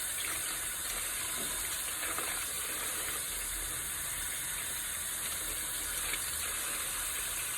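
Water tap running steadily into a sink, a constant rushing hiss, with a few faint small knocks of handling.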